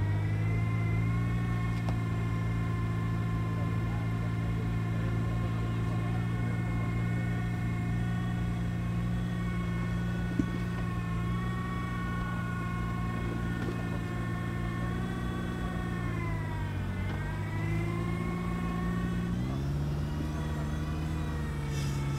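Suzuki SJ-series 4x4's engine running steadily as the car crawls up a rocky slope. Its pitch sags about three-quarters of the way through and picks up again near the end, with one sharp click about halfway.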